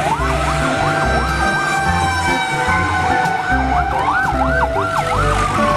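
Sirens of several fire trucks sounding at once as they drive past. A quick up-and-down yelp of about three sweeps a second overlaps a slow wail that rises and then falls, over a steady tone.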